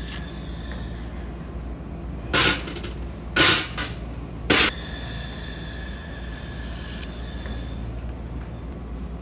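IPG fiber laser welder equipment humming steadily with a high whine, broken by three short, loud hissing bursts about two and a half, three and a half and four and a half seconds in.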